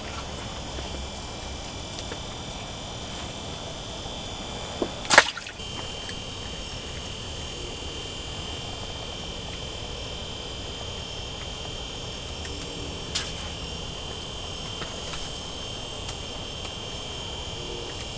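Steady background hiss with a faint high whine, broken by a sharp click about five seconds in and a lighter one about thirteen seconds in, from handling ice-fishing rod and tackle.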